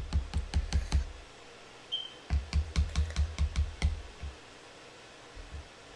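Spoon knocking rhythmically against a mixing bowl while stirring cake batter, about five strokes a second. The strokes come in two runs, one ending about a second in and one lasting about two seconds, with a short high chirp between them.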